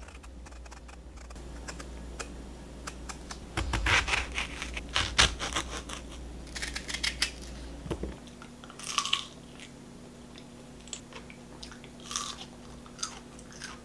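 A knife peeling and slicing a large, firm peach, with sharp crisp cuts through the hard flesh, loudest around a third of the way in. After a cut, there are crunchy bites and chewing of the crisp peach.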